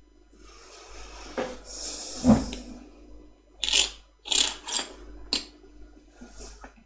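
Handling noises at a workbench: a couple of seconds of rustling with one sharp knock, then four short scraping, rubbing bursts close together.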